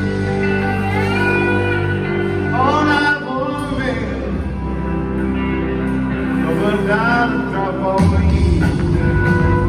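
Live rock band playing: electric guitars, bass and drums, with a lead line of bending, gliding notes over the chords. The low end gets heavier about eight seconds in.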